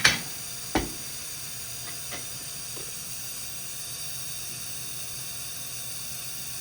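Steady hiss with a sharp click at the start, another just under a second in, and a few faint ticks after.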